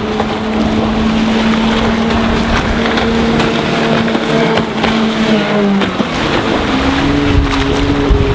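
Glastron MX 175 speedboat with its Volvo Penta 4.3-litre V6 stern-drive engine running at speed past on the water. The engine note dips about six seconds in, then steadies; wind rumbles on the microphone.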